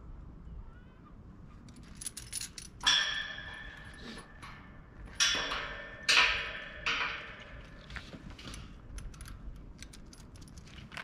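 A chain lock rattling and clanking against a steel-mesh gate as the gate is chained shut: a run of metallic rattles with several sharp clanks that ring briefly, the loudest about three, five and six seconds in.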